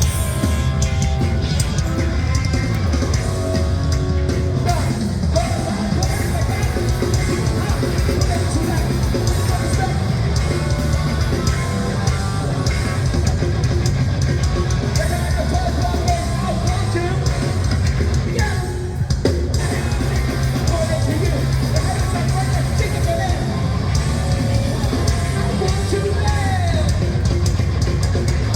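A heavy band playing live, loud and dense: pounding drums, distorted guitars and shouted vocals.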